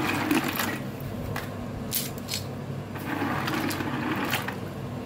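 River snail shells clicking irregularly against one another and the stainless steel pot as the snails are handled, over a steady low hum.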